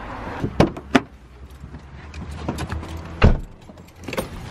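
Car door shut with a heavy thud about three seconds in, the loudest sound, after a couple of sharper clicks and knocks, over a low steady hum.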